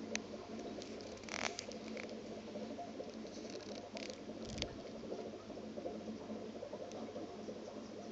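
Steady low electrical hum, with a few short clicks and scrapes: one about a second and a half in, and a pair around four seconds in, the last with a dull thump.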